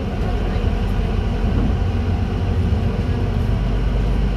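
City bus under way: a steady low rumble of engine and road noise.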